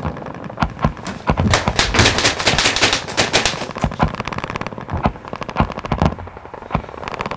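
Gunfire: a dense stretch of rapid automatic fire in the first half, followed by scattered single shots.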